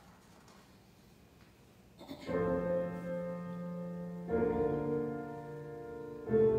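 Piano chords: after about two seconds of quiet, three sustained chords are struck roughly two seconds apart, each left ringing into the next.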